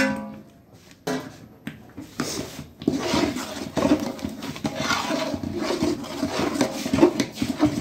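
A metallic clang with a brief ringing tone, a knock about a second later, then a metal ladle stirring and scraping thick masala in a large aluminium cooking pot.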